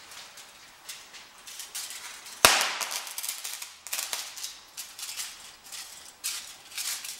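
Aluminium foil shorted across a 30 mF electrolytic capacitor bank charged to about 100 V: one loud, sharp crack about two and a half seconds in as the discharge blasts through the foil. Shorter crackles and foil rustling come before and after, with several more crackles in the last few seconds.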